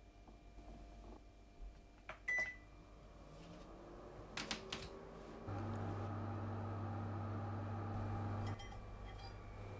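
Kitchen appliance being operated: a few clicks and a short beep, then a steady electric hum that starts suddenly, runs for about three seconds and cuts off.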